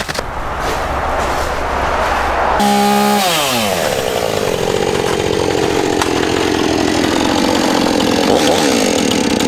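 Two-stroke chainsaw running at high revs. About two and a half seconds in, the throttle is let off and the engine note falls steeply, then the saw keeps running at a lower, steady speed.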